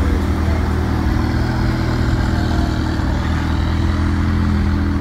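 A car engine idling steadily, a constant low hum that does not rise or fall.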